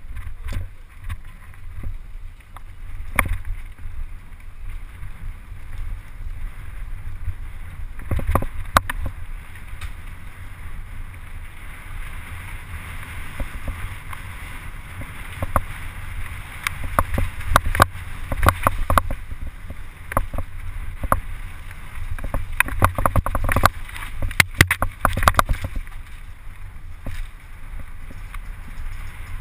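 Mountain bike descending a dirt singletrack at speed: steady low wind rumble on the microphone, with frequent sharp clatters and knocks from the bike over bumps and roots, busiest in the second half.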